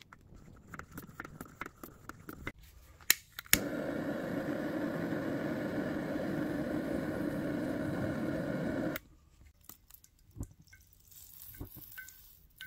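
Handheld gas torch clicked on with two sharp clicks about three seconds in, then its flame hissing steadily for about five seconds as it preheats the burner of a kerosene pressure stove, cutting off suddenly. Faint handling clicks before and after.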